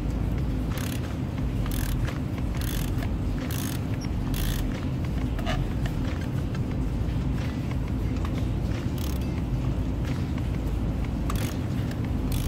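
Ratchet wrench with a spark-plug socket clicking in short bursts on each back-swing, about once a second, as spark plugs are unscrewed from a 2.5-litre petrol engine. There are two runs of strokes, with a pause in the middle, over a steady low hum.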